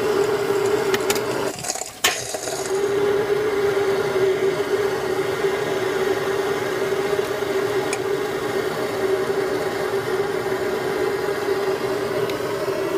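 Handheld gas torch burning at a pipe fitting: a steady hissing rush with a steady hum in it. It dips briefly just before two seconds in and comes back with a sharp click.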